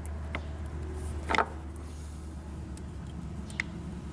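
A few light metallic clicks and knocks as the loose rotor of an aftermarket gerotor oil pump is rocked by hand in its housing. The loudest comes about a second and a half in. The knock comes from too much clearance at the rotor, a sign of a sloppily machined pump. A low steady hum runs underneath.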